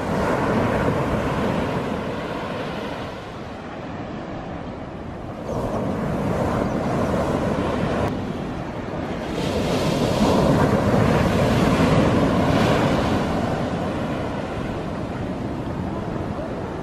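Ocean surf breaking close to shore, waves crashing and washing up the sand in several swelling surges, the loudest about two-thirds of the way through. Wind rumbles on the microphone underneath.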